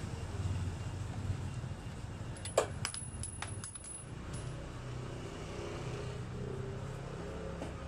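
Bicycle headset parts being handled by hand: a quick run of small metallic clicks and clinks with a short high ring about two and a half seconds in, as the threaded top cup and washer come loose, over a steady low background rumble.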